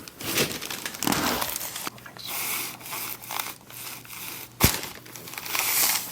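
Crinkling and rustling of paper on a chiropractic treatment table as the patient shifts on it, with one sharp thump about four and a half seconds in.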